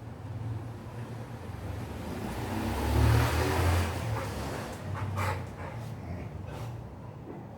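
A motor vehicle passing by, its rumble swelling to a peak about three seconds in and then fading, followed by a few light knocks.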